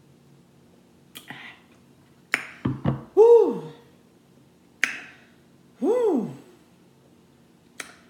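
A woman belching loudly twice, about three and six seconds in, each belch rising and then falling in pitch, after sips of a carbonated malt drink. A few short sharp clicks come between and around the belches.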